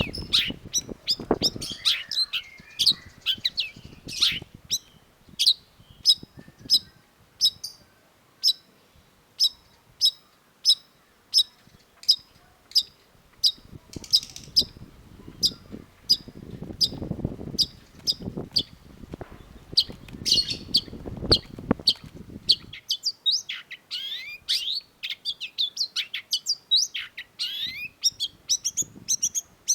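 Long-tailed shrike singing: a sharp high note repeated steadily about twice a second, breaking into faster, varied twittering phrases in the second half.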